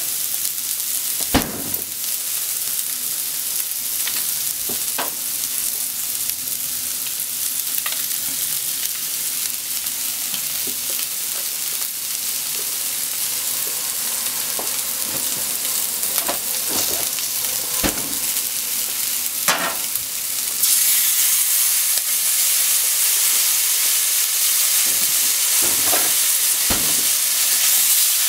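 Shrimp and sliced potatoes sizzling in oil in a hot frying pan, a steady frying hiss with a few short knocks. About two-thirds of the way through, the sizzle jumps up and grows louder.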